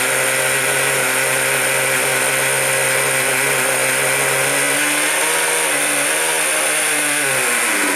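Traxxas 2.5 two-stroke nitro engine in an RC monster truck, running steadily. Its pitch wavers in the second half, and it cuts out abruptly at the very end.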